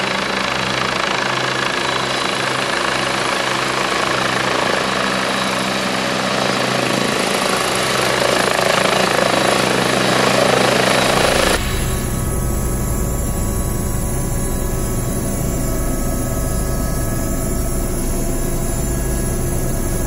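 Westland Wasp helicopter coming in to land, its Rolls-Royce Nimbus turboshaft and rotor running and growing louder for about ten seconds. Then comes a sudden change to a steady engine-and-rotor drone with a low rumble, heard from inside a helicopter cockpit.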